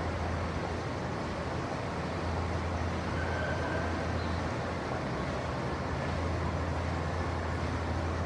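Light city traffic ambience: a steady low rumble of traffic, with no single vehicle standing out.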